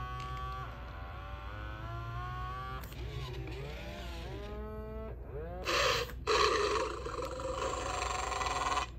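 Mattel D-Rex animatronic toy dinosaur making its recorded dinosaur sounds through its speaker: a held moaning call, then a few bending growls, then a louder rasping roar in the second half.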